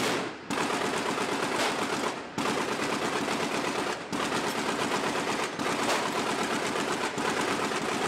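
Rapid automatic gunfire in long bursts, broken by short pauses about every one and a half to two seconds.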